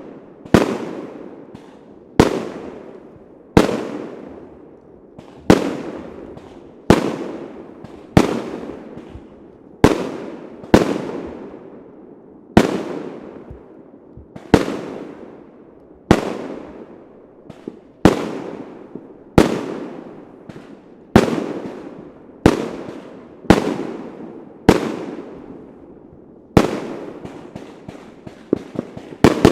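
Fireworks shells bursting one after another at an even pace, a sharp bang about every second and a half, each followed by a long fading echo. Near the end smaller cracks start to come between the bangs.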